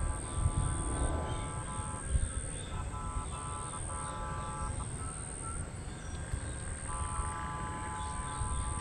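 Rail inspection car's horn sounding a chord in repeated blasts: a blast with brief breaks, then a run of short toots, a pause, and a long blast starting about seven seconds in, over a low steady rumble.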